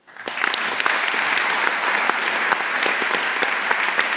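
Audience applauding: many hands clapping in a dense, steady patter that swells up within the first half second and holds.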